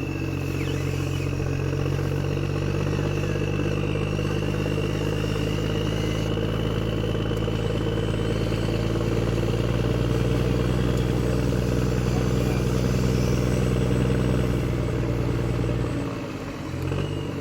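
An engine running steadily at a low idle, with a faint high whine over it. The engine note drops away suddenly about sixteen seconds in.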